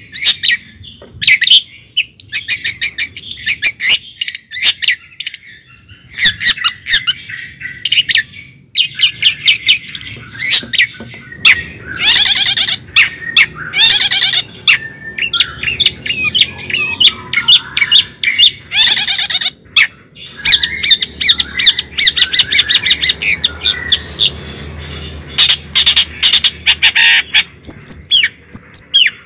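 Bird chirping and squawking in rapid, nearly continuous runs of high calls, broken by short pauses.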